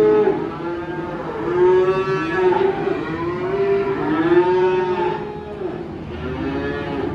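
Cattle mooing: several long, drawn-out calls overlapping and following one another.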